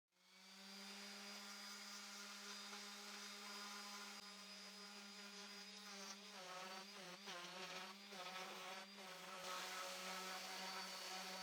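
Faint, steady buzz of a small power tool's electric motor. Its pitch sags and wavers a little midway as it is loaded, while 80-grit sanding takes the burrs off drilled wood.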